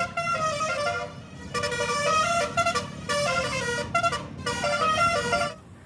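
Telolet bus horn: several pitched horn tones sounding together, stepping through a short melodic tune. It breaks briefly about a second in and stops shortly before the end.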